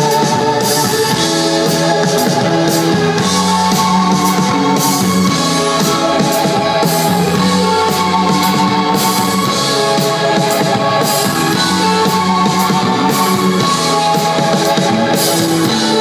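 Rock band playing live: electric guitar, keyboard and drum kit, with a steady beat.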